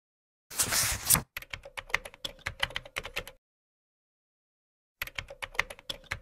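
Keyboard typing sound effect: two quick runs of key clicks, the first after about a second and the second near the end, as on-screen captions type themselves out. The first run is just preceded by a short, loud burst of noise.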